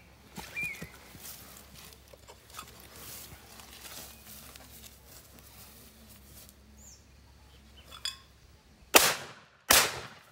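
Two shots from a 28-gauge Darne sliding-breech side-by-side shotgun, fired in quick succession less than a second apart near the end.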